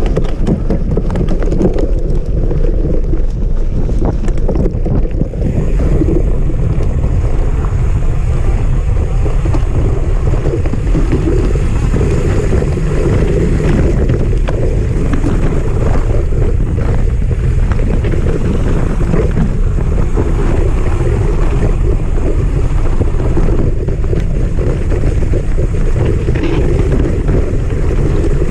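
Mountain bike descending a rough dirt forest trail, heard from a camera mounted on the bike: constant loud wind buffeting on the microphone over tyre rumble, with frequent rattles and knocks as the bike crosses roots and stones.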